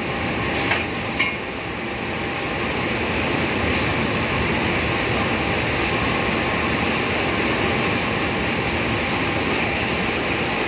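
Parcel train wagons rolling past at close range: a steady rumble of wheels on rail, with two sharp clinks about a second in.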